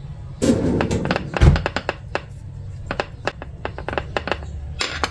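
A dull thunk about a second and a half in, then a run of light clicks and taps as a metal spoon works at mango halves on a plate, over background music.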